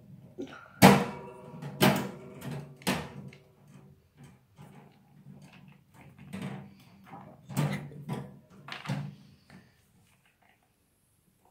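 A series of sharp knocks and thuds with a brief ringing after each: three loud ones in the first few seconds and two more about eight and nine seconds in, with softer rustling between.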